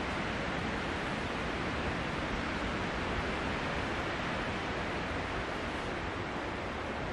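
Steady, even rushing noise with no distinct sounds in it.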